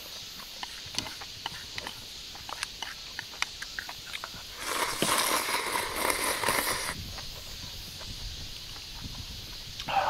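Kalguksu noodles slurped from a bowl of soup in one noisy pull of about two seconds in the middle, with small clicks of eating before it, over a steady high buzz of insects.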